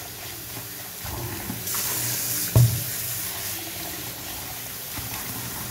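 Kitchen tap running into a stainless steel mixer-grinder jar in a steel sink as the jar is rinsed out by hand, with one sharp knock about two and a half seconds in.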